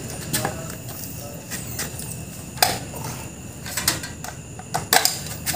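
A handful of sharp clicks and light clinks, a second or so apart, as a multimeter, its test leads and tools are handled.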